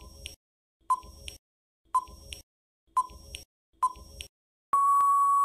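Quiz countdown-timer sound effect: five short beeps about a second apart, each followed by a fainter tick, then one longer steady beep near the end as the time runs out.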